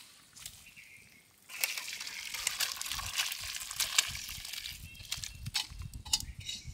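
Fish curry being poured out of a cooking pot, a sloshing, splashing pour with scattered clicks, starting about a second and a half in.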